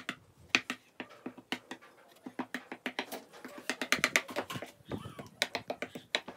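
Small metal spoon clinking and scraping against a small bowl, a run of many quick, irregular clicks.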